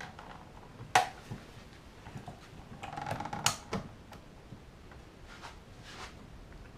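Clicks and taps as a part of an O gauge model locomotive's body is slotted into place: one sharp click about a second in, a small cluster of clicks around the middle, and a few fainter taps near the end.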